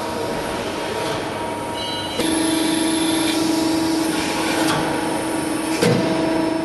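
Trumpf Trumabend CNC press brake running: a steady machine hum, with a louder steady tone coming in about two seconds in and cutting off with a knock near the end.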